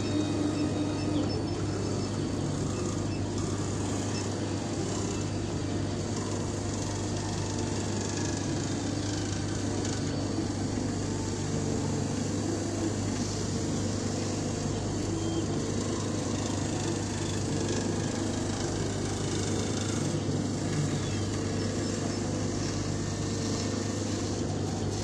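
Laser cutter running while it cuts a sheet of foam: a steady mechanical hum and whir from the machine, unchanging throughout.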